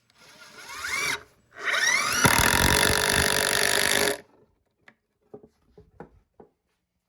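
Power drill driving a screw into wood in two runs: a short burst whose whine rises in pitch, a brief pause, then a longer run that spins up and holds steady for about two and a half seconds before stopping. A few light clicks follow.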